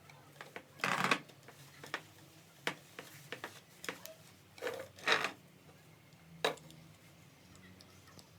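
A few short, scattered knocks and rustles of things being handled, with the louder ones about a second in and around five seconds in, over a faint steady hum.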